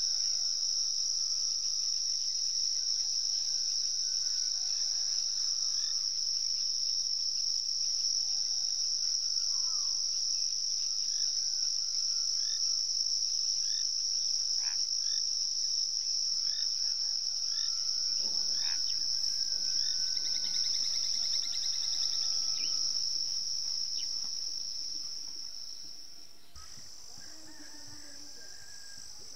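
Dawn chorus of crickets: one continuous, steady high-pitched trill, with scattered short chirps and whistles over it. It grows quieter and thinner near the end.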